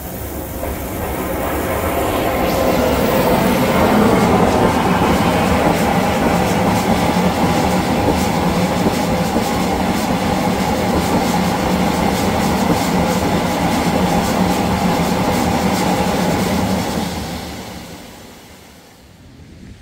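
Cochran vertical boiler being blown down: the blowdown valve is opened and boiler water and steam rush out of the discharge pipe in a loud, steady rush, clearing sediment from the bottom of the boiler. The rush builds over the first few seconds, holds, then dies away near the end.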